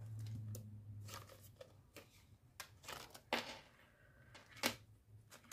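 Faint rustling and scattered clicks of plastic banknotes and a clear plastic zip pocket being handled in a ring binder, with a low hum during the first second and two sharper clicks about three and four and a half seconds in.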